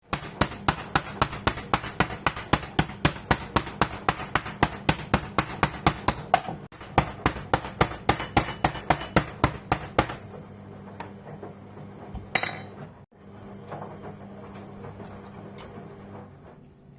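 Cleaver chopping lamb on a cutting board to mince it for kebab, steady strokes about three a second, pausing briefly after about six seconds and stopping about ten seconds in; softer knocks and handling follow.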